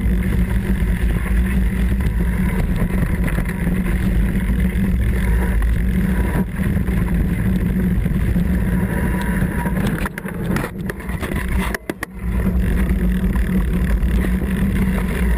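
Mountain bike riding fast downhill on a rough trail, heard through a bike-mounted action camera: a steady, loud rumble of tyre roar, wind on the microphone and frame rattle. About ten seconds in the rumble eases and breaks into a few sharp knocks, then picks up again.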